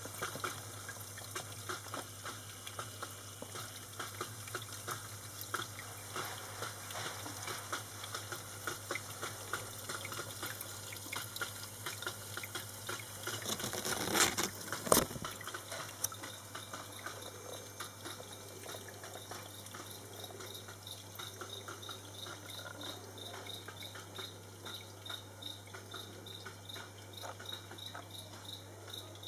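Water trickling and dripping in a small terrarium aquarium: many small irregular drips over a steady low hum. There is a brief louder noise about halfway through, and a faint rapid high-pitched pulsing in the last third.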